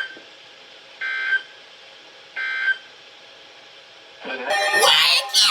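NOAA Weather Radio SAME end-of-message data bursts: short, buzzy digital bleeps about 1.3 seconds apart, the signal that closes the severe thunderstorm warning. About four seconds in, a much louder, harsh burst starts and runs on.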